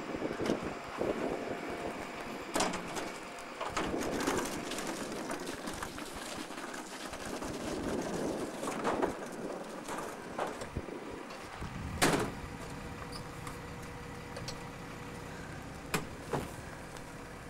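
Norba RL200 rear-loading refuse truck at work: its running engine and bin-lifting mechanism, with scattered metallic clanks and knocks from the lifter and bins. A loud knock comes about twelve seconds in, after which a steady low hum sets in, and another knock follows near sixteen seconds.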